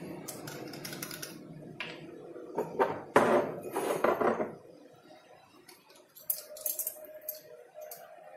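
Small glass bottles and their caps being handled on a stone countertop: clinks, clicks and scraping, loudest in a cluster around three to four seconds in, then a few lighter ticks near the end.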